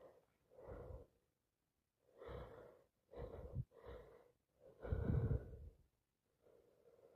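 A person with a cold breathing in a run of short, noisy gasps and breaths, about six in all. The loudest comes a little after halfway, typical of the catching breaths around a sneezing fit.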